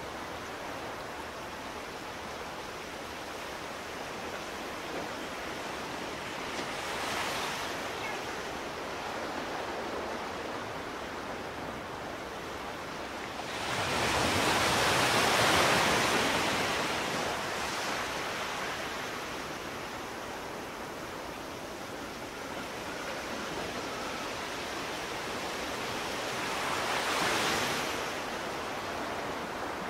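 Steady rushing water noise of underwater ambience. It swells louder three times: briefly about seven seconds in, most strongly for a few seconds from about fourteen seconds, and again near the end.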